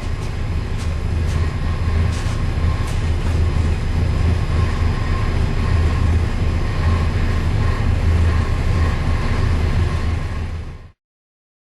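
Small Block Chevy 415 cubic-inch stroker race engine with a mechanical flat-tappet cam and 750 carburetor, running on gas on an engine dyno: a loud, steady, deep engine note that cuts off suddenly about eleven seconds in.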